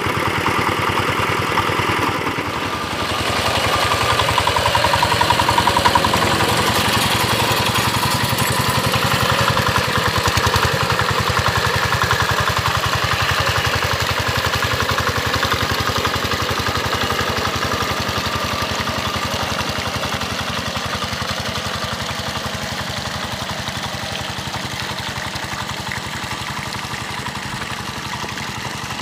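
Single-cylinder diesel engine of an old two-wheel hand tractor running steadily with a rapid chug, pulling a plow through a muddy rice paddy. The sound dips briefly about two seconds in, then runs on evenly.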